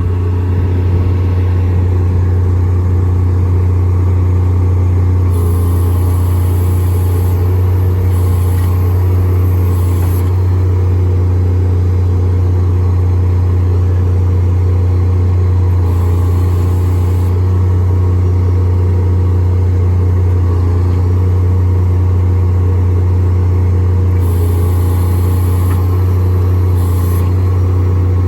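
Engine running at a steady drone while the truck's hydraulic equipment is worked, with stretches of high hissing about five to ten seconds in, around sixteen seconds, and again near the end.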